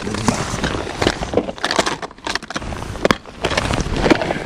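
Close rustling and irregular clicks of fishing tackle being handled while a lure is changed.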